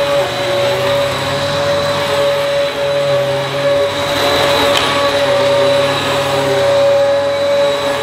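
Dyson DC14 upright vacuum cleaner running, a loud steady whine over rushing air, with one faint click about halfway through. The owner suspects something loose, another screw, rattling about inside it.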